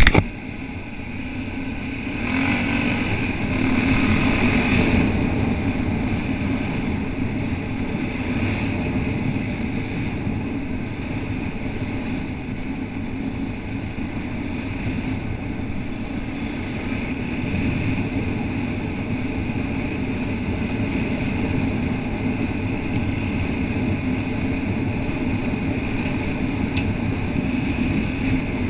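Yamaha XT660R's single-cylinder four-stroke engine running under way, heard from the moving bike mixed with wind and gravel-road noise. It gets louder for a few seconds about two seconds in, then holds steady.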